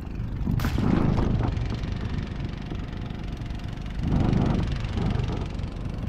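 Small boat engine running steadily at low speed, with two louder swells of water and handling noise, about a second in and again around four seconds.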